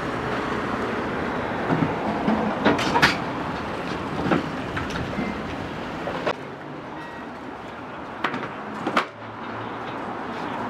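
Sharp clinks and knocks of dishes and cooking utensils, about half a dozen spread through, over a steady background rush of stall noise.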